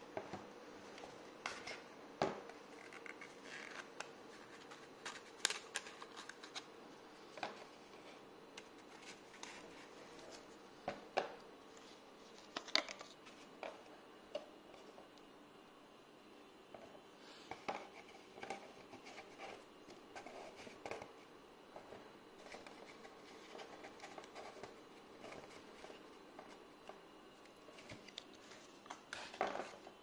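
Hands handling a Zippo gift box and its cardboard inserts: scattered light taps, scrapes and rustles as the box parts and the metal lighters are moved about and set down.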